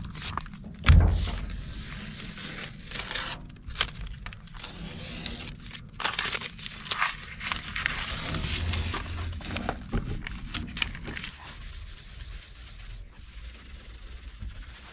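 Blue painter's tape being peeled and crumpled off a painted steel shipping-container door, with irregular tearing, rubbing and scraping and scattered small clicks; a single sharp thump about a second in.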